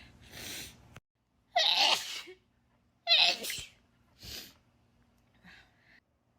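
A person sneezing twice in a row, two loud sneezes about a second and a half apart. A breathy intake of breath comes before them and a fainter breath after.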